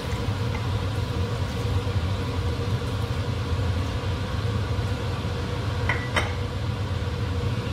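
Steady low mechanical hum of a kitchen appliance, with two light clinks about six seconds in.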